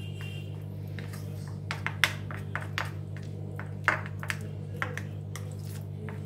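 Metal spoon stirring thin flour batter in a plastic bowl, with irregular clicks and taps of the spoon against the bowl, the loudest about two and four seconds in. A steady low hum runs underneath.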